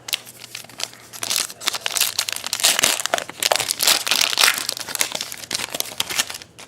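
Trading-card pack wrapper being torn open and crinkled by hand, a dense crackling that is loudest in the middle and stops just before the end.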